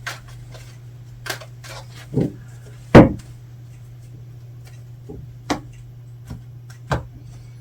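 Tarot cards being handled and laid on a table: a series of light taps and clicks, with one louder thump about three seconds in, over a steady low hum.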